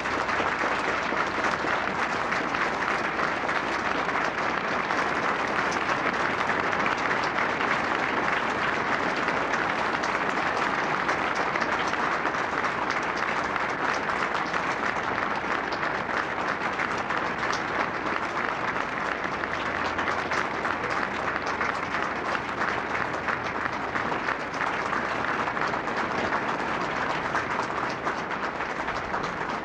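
An audience applauding: dense, steady clapping that swells in over the first second and then holds at an even level without a break.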